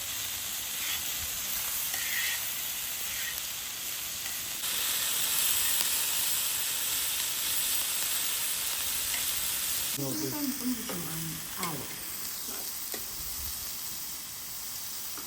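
Food frying in hot fat over a fire: a steady sizzle that grows louder about a third of the way in and eases again about two-thirds through.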